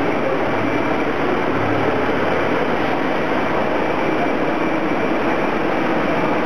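LVL production line machinery running: a steady, even mechanical noise with a faint high whine.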